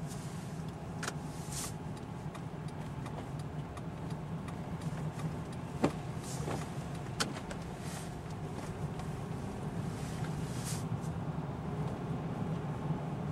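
Steady low hum of a car driving on snowy roads, heard from inside the cabin, with a few sharp clicks, the loudest about six seconds in.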